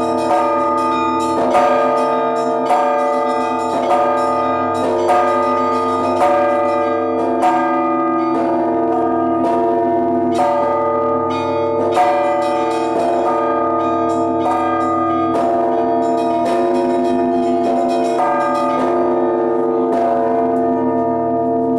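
Russian Orthodox church bells of the Trinity-Sergius Lavra belfry rung together in a hand-rung peal: several bells at different pitches are struck about twice a second, their tones ringing on over one another. The striking stops shortly before the end, leaving the bells ringing on.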